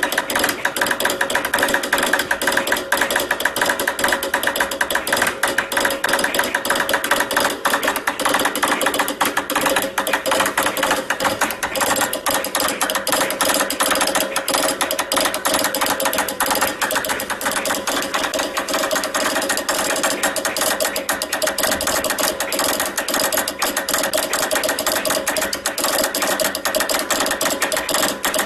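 Morse code straight key being worked at high speed, a continuous rapid stream of sharp mechanical clicks.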